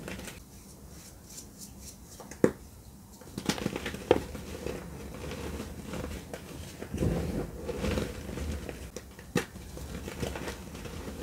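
Dry gym chalk being crushed and crumbled between the hands: soft crunching and crackling as lumps break up and powder sifts down, with a few sharp cracks about 2.5, 4 and 9.5 seconds in. The crunching is quieter for the first few seconds, then busier.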